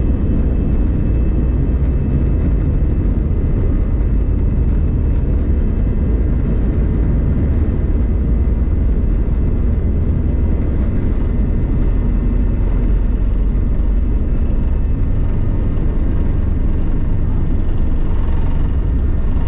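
Airbus A320 jet engines at takeoff thrust, heard inside the cabin during the takeoff roll: a steady, loud deep rumble with thin steady whining tones on top. The aircraft lifts off near the end.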